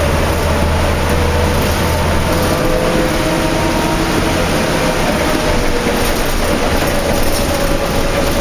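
Interior of a 2004 New Flyer D40LF transit bus under way, with its Cummins ISL diesel and ZF automatic transmission running amid steady road and rain noise. A steady whine sits over the noise, and the low engine drone drops off about two and a half seconds in.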